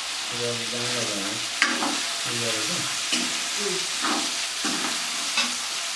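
Vegetables sizzling in hot oil in a pan while being stirred, with a few sharp clinks of the spoon against the pan, the loudest about one and a half seconds in.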